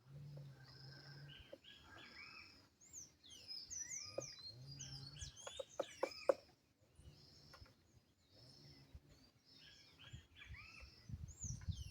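Birds chirping and calling in short, quick rising and falling notes throughout. A few sharp taps come about halfway through, and a low hum comes and goes.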